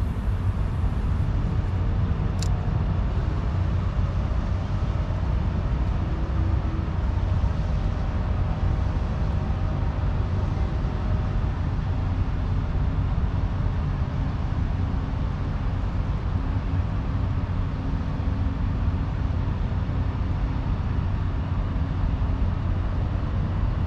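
Steady low outdoor rumble with a faint, slowly shifting hum of distant motors under it, and one sharp click about two seconds in.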